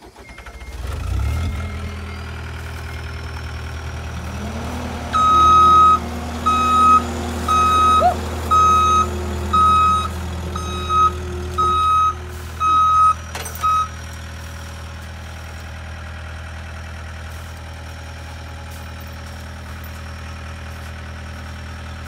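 John Deere 323D compact track loader's diesel engine starting up about a second in and running, its engine note rising about five seconds in. Its reversing alarm then beeps about eleven times over the next nine seconds as it backs up, and the engine runs on steadily afterwards.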